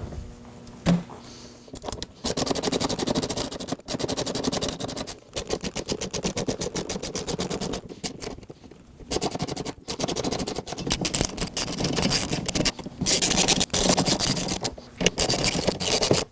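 A ratchet clicking rapidly in runs of one to three seconds with short pauses, as the bolts of the shelf's side bracket are driven in with a 5 mm hex bit.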